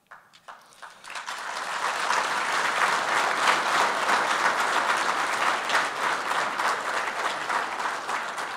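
Audience applauding: a few scattered claps at first, swelling within about a second into sustained clapping.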